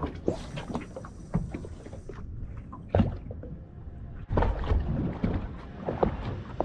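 Fishing line hissing off a spinning reel's spool during a cast for about two seconds, followed by irregular knocks and water lapping against a small boat's hull.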